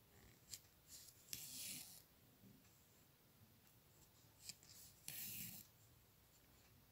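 Faint swishes of red embroidery thread being drawn through glace cotton fabric stretched in a hoop: two short hissing pulls, about a second and a half in and again about five seconds in, with a few light ticks of the needle.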